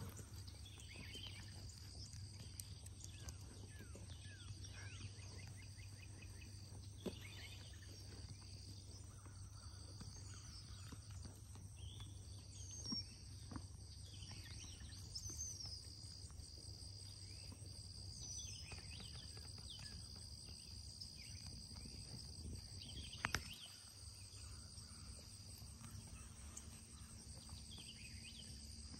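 Faint summer field ambience: a steady high insect chorus that drops out briefly now and then, a few short bird chirps, and scattered light clicks and rustles from animals moving through the brush, with one sharper snap late on.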